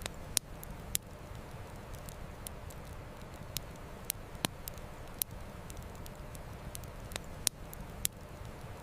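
Campfire crackling, with about ten sharp irregular pops of burning wood, over a steady low rush of flowing river water.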